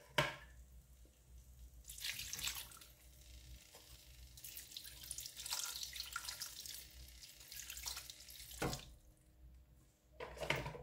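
Water poured from a glass into a pot of crab pieces in masala, splashing and trickling in stretches. There is a sharp clink at the start and another near the end.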